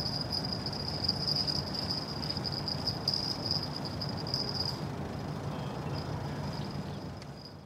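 Low, steady hum from a distant cruise ship and dock machinery across the water, with a high, pulsing chirr above it that stops about two-thirds of the way through. The sound fades out near the end.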